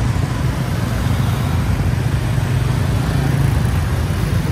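Scooter and motorbike engines running in slow street traffic, a steady low hum under the general road noise.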